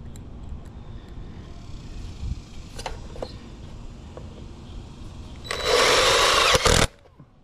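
A power drill driving a short screw into a gutter, running for about a second and a half near the end and stopping abruptly. A few faint knocks come before it.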